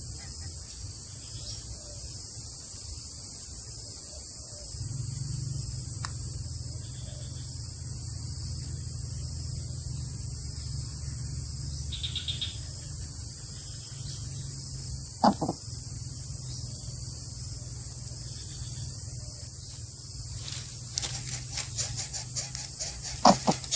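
A steady high-pitched drone over a low hum, with one sharp click about midway. Near the end comes a run of crackling and scratching from the dry palm-leaf nest as a greater coucal shifts about and climbs out over its chicks.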